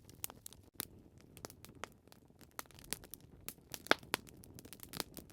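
Wood fire crackling, with irregular sharp pops over a low steady rumble and one louder pop about four seconds in.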